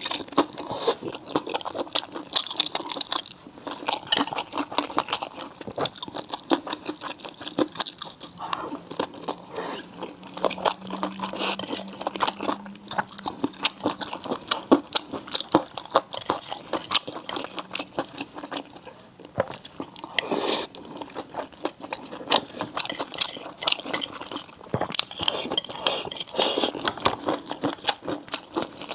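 Close-miked chewing and biting of seafood: a dense run of small crisp crunches and clicks from the mouth, with one louder bite or crunch about 20 seconds in.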